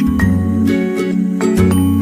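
Background music: a light, upbeat tune with bell-like struck notes over a steady bass.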